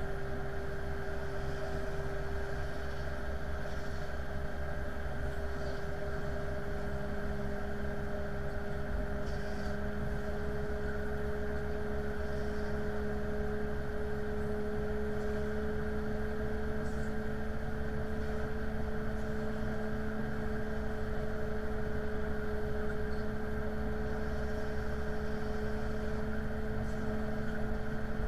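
Steady engine drone of a jetliner pushback. It carries a tone that slowly rises in pitch, and a second, lower tone joins about six seconds in.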